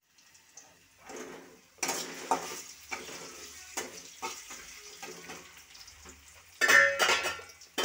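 Metal spatula scraping and knocking against a metal kadai (wok) as diced food is stirred in hot oil, over a light sizzle. The strokes come every half second to a second, and the loudest, ringing scrapes come near the end.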